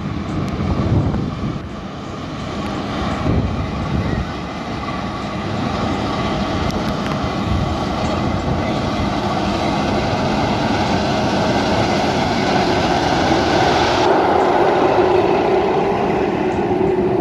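An engine running steadily with a constant low hum under a dense mechanical rumble, growing louder over the first half and holding strong after.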